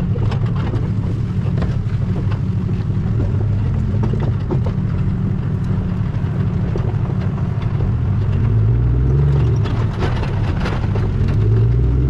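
Truck and flatbed trailer travelling on a road with the bench wagon in tow: steady low road rumble with scattered rattles and knocks, and a low tone that rises about nine seconds in and again near the end as the rig speeds up.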